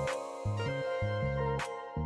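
Instrumental background music: steady sustained notes over a changing bass line, with a sharp percussive hit at the start and another about a second and a half in.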